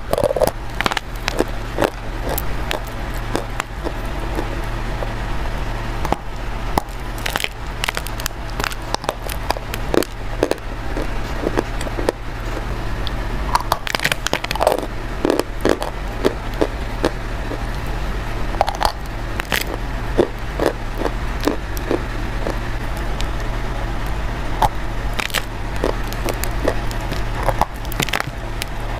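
Close-up biting and chewing of something brittle: sharp, irregular crunches and crackles over a steady low electrical hum.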